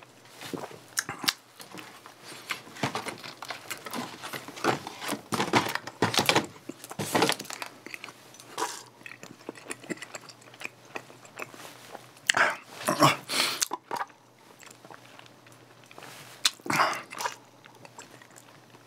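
Close-miked chewing of a mouthful of soft doughnut: irregular wet smacks and small clicks of the mouth, with two louder bursts in the second half.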